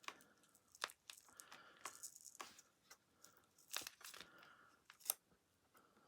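Faint, scattered clicks and short scraping, peeling sounds of a thin steak knife levering a glued plastic joint of a Shark CarpetXpert vacuum floor head apart.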